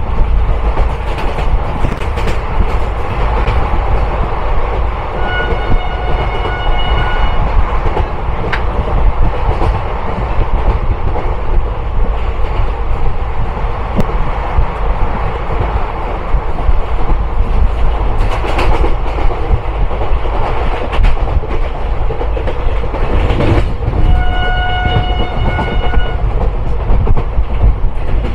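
Indian Railways passenger train running at speed, heard from an open coach door: steady rail clatter and a loud low rumble. The locomotive horn sounds twice, about two seconds each, a few seconds in and again near the end.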